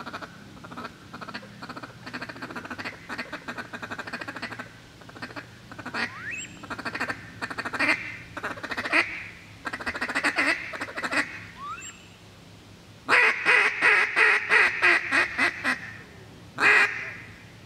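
Ducks calling: runs of rapid, chattering quacks, with a couple of short rising squeals. A louder, faster run starts about 13 seconds in and lasts about three seconds, followed by one short burst near the end.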